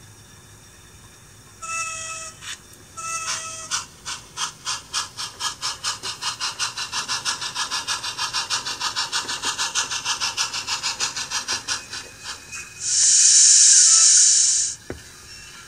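Sound system of a Bachmann On30 Porter 0-4-2 model steam locomotive: two short whistle blasts, then rapid, even steam chuffing as the engine runs in. Near the end the chuffing stops and a loud burst of steam hiss lasts about two seconds, followed by a brief click.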